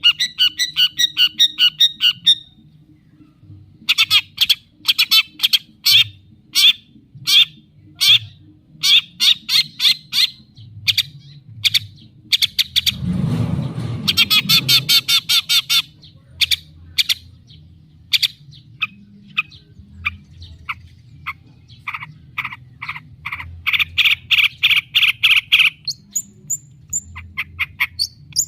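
Long-tailed shrike (cendet) singing a fast, varied song of rapid repeated chips and trills, packed with mimicked phrases of other birds, with a harsh rasping chatter about thirteen seconds in and a dense buzzing trill near the end.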